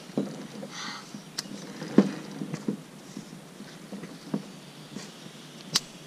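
Irregular knocks and scuffs of sneakers and hands against a wooden climbing wall as a climber moves across it, with one loud knock about two seconds in and a sharp click near the end.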